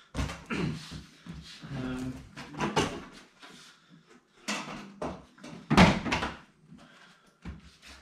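A large cardboard box being handled and opened: cardboard scraping and rustling with a run of knocks, the loudest a thump about six seconds in.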